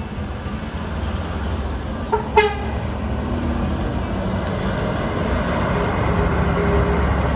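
Bus engine running with a steady low rumble that grows louder as it nears, with two short horn toots about two seconds in, the second louder than the first.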